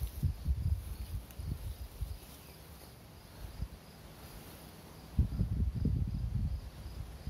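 Wind buffeting the microphone in low rumbling gusts, in the first two seconds and again from about five seconds in. Behind it, faint insects chirp in a steady, evenly repeating rhythm from the grass.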